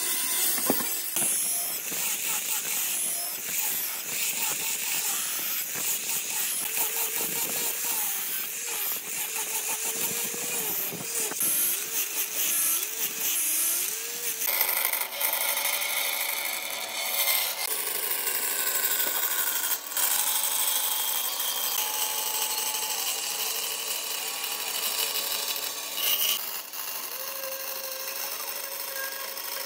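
Power tools cutting or sanding wood: a steady hissy machining noise, with a motor tone wavering in pitch under load for several seconds. About halfway through the sound changes abruptly to a steadier-running tool.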